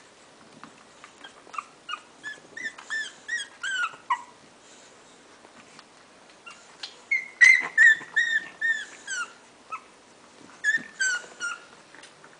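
English bulldog puppies squealing and whimpering, short high-pitched cries that rise and fall in pitch, in three bursts of rapid calls with the loudest in the middle.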